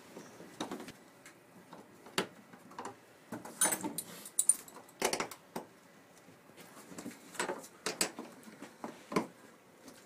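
Irregular sharp wooden knocks and clicks, about a dozen, as hands work at the caned seat frame inside a wooden canoe.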